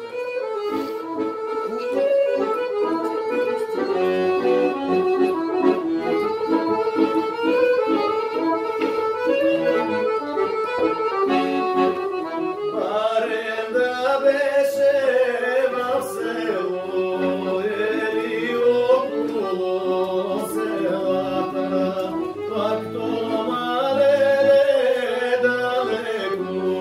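Weltmeister piano accordion playing a lively tune with fast runs of notes. About twelve seconds in, a man's voice joins, singing over the accordion with a wavering vibrato.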